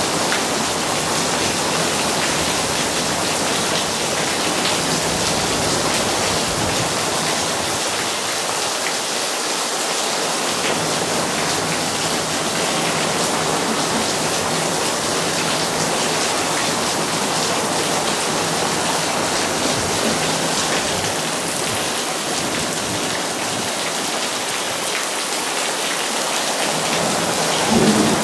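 Steady monsoon thunderstorm rain falling, an even, unbroken hiss of rain.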